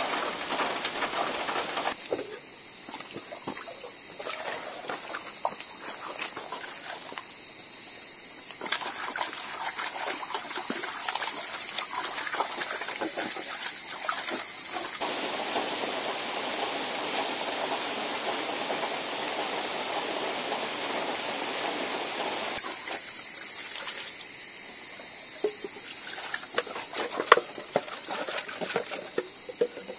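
Drizzle pattering into an open water drum for the first couple of seconds. Then water runs from the tap of a steel drum and splashes in a cooking pot as it is rinsed. The flow sounds louder and fuller midway through, then eases, with sharper splashes and knocks near the end.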